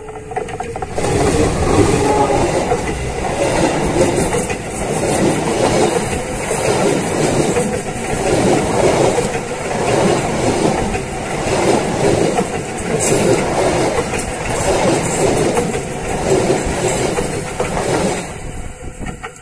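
Lodaya passenger train's carriages passing at speed directly over a camera lying between the rails. It is a loud rushing rumble with a wheel clatter repeating about once a second. The sound starts about a second in and falls away near the end as the last carriage clears.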